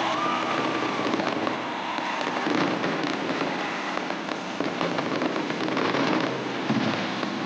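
Fireworks show with a dense run of rapid crackles and pops.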